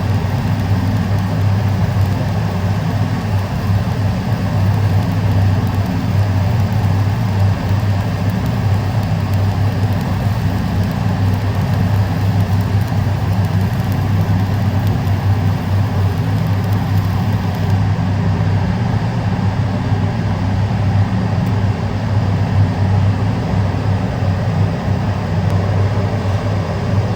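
Cladding welding equipment running with a steady low electrical hum and even noise, unchanging throughout.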